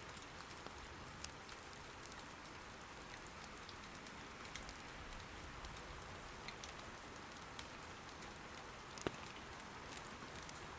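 Steady rain falling, with scattered small crackles of burning firewood in an irori hearth and one louder pop about nine seconds in.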